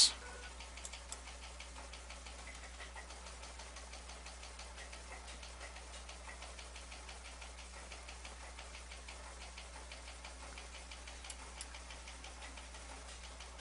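Faint steady low hum with a rapid, even ticking running through it.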